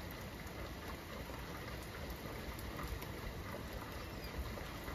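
Steady rainfall from a rain sound-effect track: an even hiss of rain with faint, scattered drop ticks.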